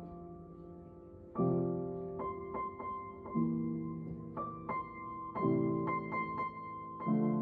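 Solo piano playing a slow piece: a low chord struck about every two seconds, with a few higher melody notes in between, each note left to ring and fade.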